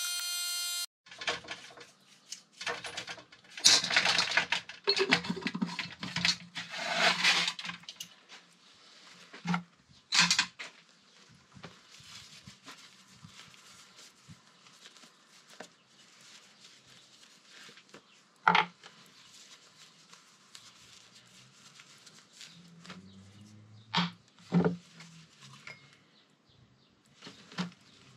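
Cloth rag rubbing and wiping a metal brake master cylinder housing, rustling in bursts for the first several seconds. Then a few scattered sharp metallic clicks and knocks as the part is handled and set down on a wooden board.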